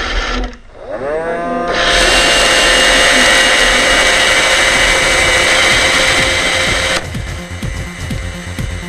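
iRobot Roomba 650 robot vacuum's motors spinning up with a rising whine, then running with a loud steady whine. The whine cuts off suddenly about seven seconds in and electronic music with a steady beat takes over.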